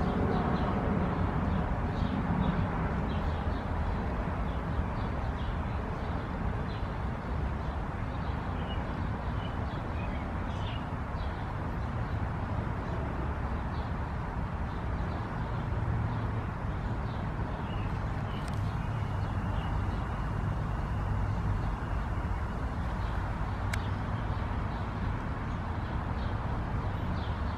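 Steady outdoor background rumble, heaviest at the low end, with faint high chirps now and then.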